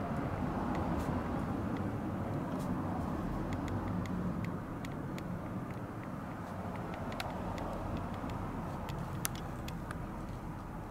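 Steady low rumbling background noise with scattered faint ticks and clicks.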